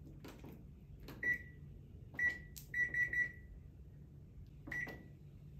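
Top-loading washing machine's control panel beeping as its buttons are pressed. There are six short high beeps at one pitch, three of them in quick succession near the middle, each just after a soft button click.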